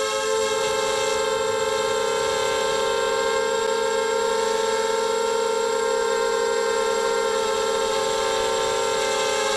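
Quad250 mini quadcopter's electric motors and propellers whining in flight: a steady, high buzzing hum of several close tones, its pitch holding nearly constant under even throttle.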